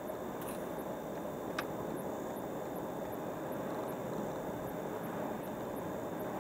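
Steady road and tyre noise of a car driving at speed, with one short click about a second and a half in.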